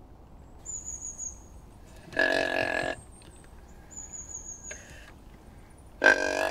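Two nasal, bleat-like animal calls. The first comes about two seconds in and lasts most of a second; the second is short, near the end. Between them a bird's thin, high, slightly falling whistle sounds twice.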